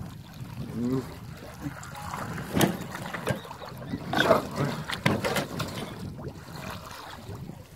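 A hooked jaú catfish thrashing at the water's surface beside a boat, making a series of splashes, the loudest a few seconds in.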